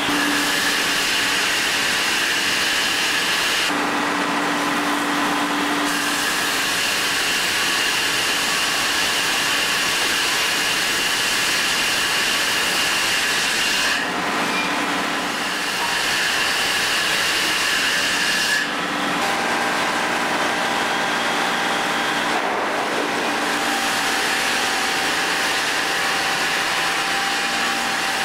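KMC sawmill machinery, the mechanical chopsaw and the double arbor gangsaw, running in a steady mechanical din. A high saw whine drops out and returns several times.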